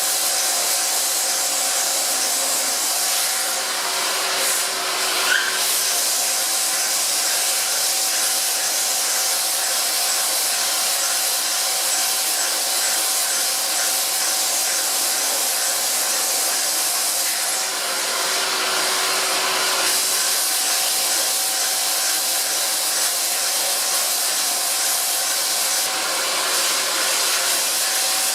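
Shop vac running steadily at the cut of a bimetal hole saw sawing slowly through half-inch steel on a milling machine: a steady rush of air with a motor whine, which dips briefly twice. A short louder sound about five seconds in.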